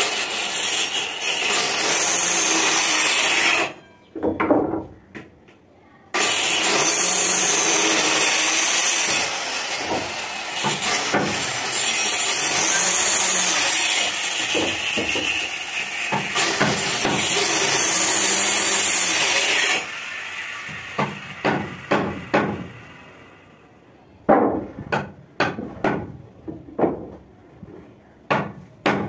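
Handheld electric circular cutter with a small round blade running and cutting through a wooden plank, in a short pass, a brief stop, then a longer pass. After that the motor is off and a series of sharp wooden knocks follows as the planks are moved and set down.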